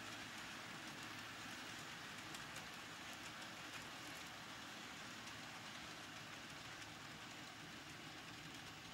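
Faint, steady rolling noise of N scale model train cars running along the track, with scattered light ticks from the small wheels on the rails.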